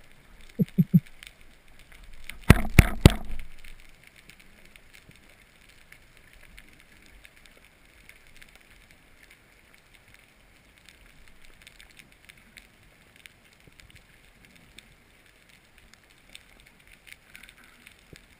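Underwater ambience of faint, continuous crackling ticks. Three short knocks come just under a second in, followed by a burst of loud knocks and thuds at about two and a half to three seconds.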